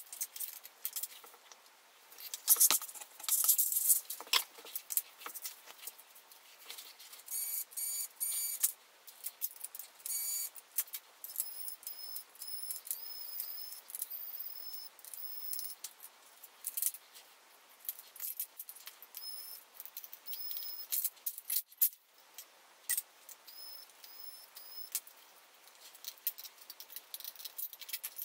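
Sped-up sound of a laptop being taken apart by hand: rapid clicks and clatter of screws, plastic and metal parts. Short high-pitched whines that rise as they start come again and again through the middle; they fit an electric screwdriver run in brief spurts, raised in pitch by the speed-up.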